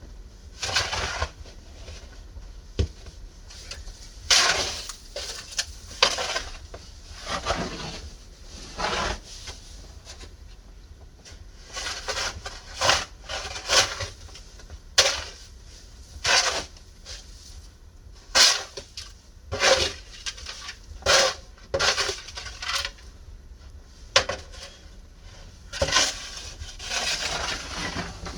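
Snow shovel scraping and crunching through deep snow, a stroke roughly every second or two with a few short pauses.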